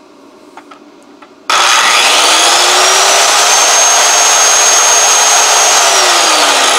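Old Craftsman circular saw with a 10-amp motor, powered from a 12 V battery through an inverter, switching on about a second and a half in. Its whine rises as it spins up, holds steady at full speed, then begins to fall as the trigger is released near the end. It starts without trouble.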